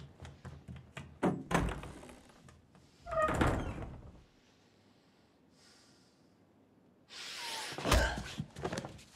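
A door thuds shut about a second in, then footsteps and clothing rustle. A loud scuffle of movement comes near the end, with a heavy thump.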